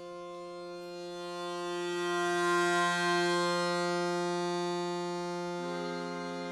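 Piano accordion and smallpipes playing slow, sustained notes over a steady low drone. The sound swells to its loudest about two and a half seconds in, and the chord changes about five and a half seconds in.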